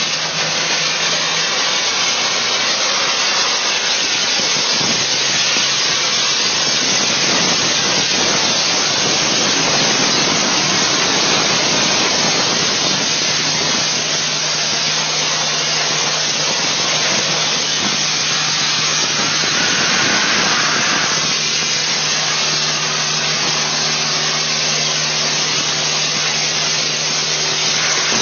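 Dustless blaster's nozzle spraying a jet of water and abrasive with a loud, steady hiss as it strips coated steel pipework, over a low steady hum from the blasting machine.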